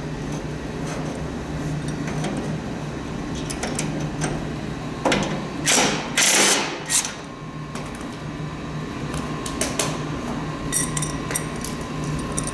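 Hand tools working on the rusty metal parts of a snowblower being taken apart: scattered clicks and clinks, with three short, loud rasping bursts about five to seven seconds in. A steady low hum runs underneath.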